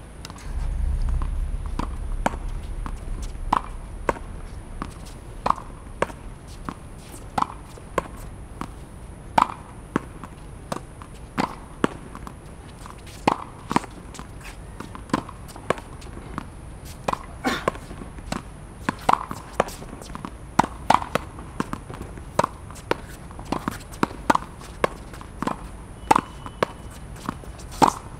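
Tennis ball hit over and over against a practice wall: a steady series of sharp pops, roughly one or two a second.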